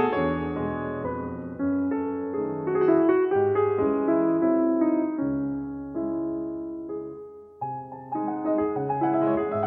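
Background piano music: a slow melody of held notes, with a brief lull a little after seven seconds in before new notes start.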